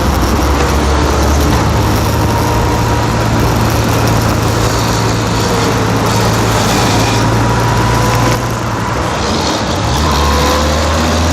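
A motor vehicle's engine running steadily with a low hum that shifts pitch about a second and a half in and again near the end.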